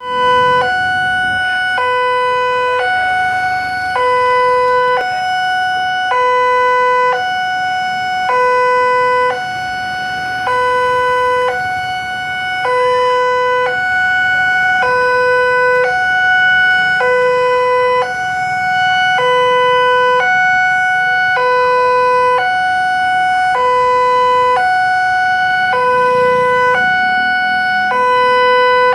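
Two-tone hi-lo electronic siren, switching between a low note and a higher note about once a second in a steady, unbroken cycle.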